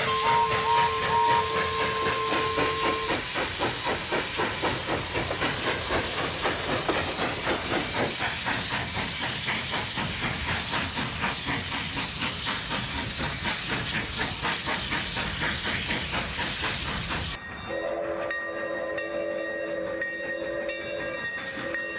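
Steam locomotive running hard, its exhaust a rapid even beat of chuffs over a dense hiss of steam. Just after a steady tone with a few short pips in the first few seconds, the running sound cuts off suddenly to a multi-chime steam whistle blowing, broken once for a moment near the end.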